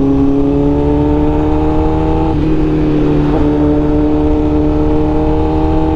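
A 1000cc inline-four superbike engine pulling in third gear as the bike accelerates. Its note climbs steadily, with two brief dips a little before and after the middle.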